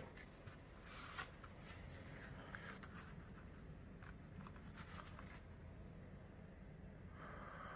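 Faint rustling and sliding of paper and cardboard CD packaging being handled, in a few short bouts. A steadier hiss rises near the end.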